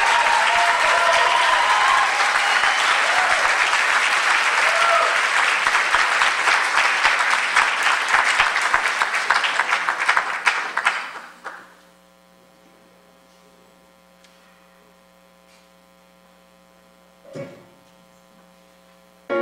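Audience applauding and cheering, which fades out after about eleven seconds. Then a quiet, steady electrical hum from the sound system, with one brief sound near the end.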